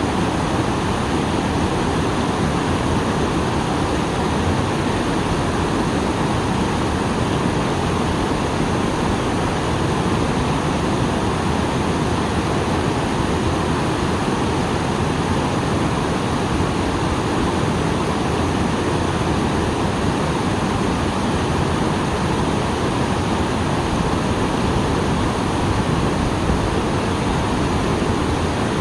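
Small waterfall pouring steadily, a dense even rush of falling water, full after rain.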